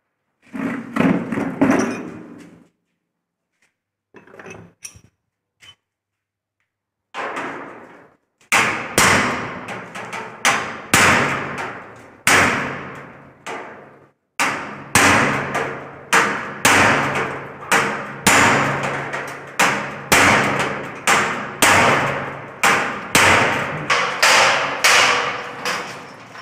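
Hammer blows on the steel frame of a rolling shutter being fitted. A few scattered knocks come first, then from about eight seconds in a steady run of hard strikes, about two a second, each ringing briefly on the metal.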